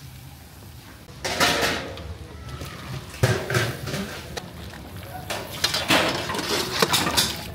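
Long-handled metal ladles clanking and scraping against large metal cooking pots, in a run of separate knocks and scrapes, busiest in the second half.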